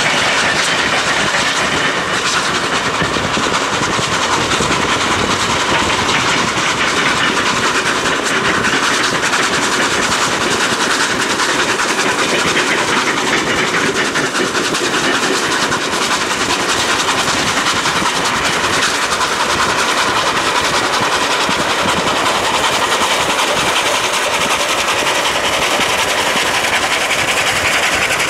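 NSWGR 36 class 4-6-0 steam locomotive 3642 running with its passenger train, heard from a car pacing it alongside. The train's running noise blends with the car's road noise into a steady, even sound.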